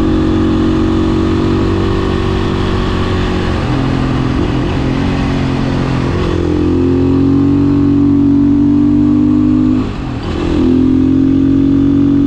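Beta 500 RS single-cylinder four-stroke motorcycle engine running while ridden, its pitch stepping down a couple of times. About ten seconds in the engine briefly drops off, then comes back up to speed.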